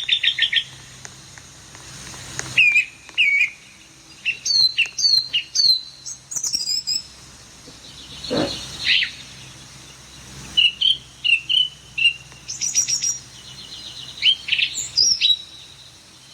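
A small bird chirping in quick bursts of short, sliding high calls, with a single short noisy burst about eight seconds in.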